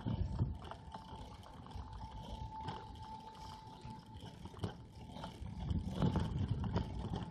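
Mountain bike riding noise: wind buffeting the microphone in a low rumble while the bike rattles and knocks over the paving, with a faint steady whistle-like tone for a few seconds near the start.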